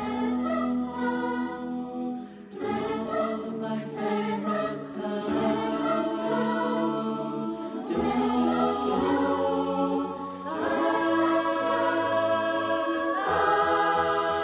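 Choir singing slow, sustained chords, with a long held chord in the last few seconds.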